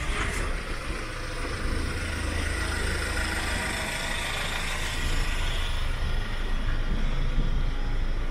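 Street traffic: a motor vehicle's engine rumbling steadily, with tyre and road noise on top.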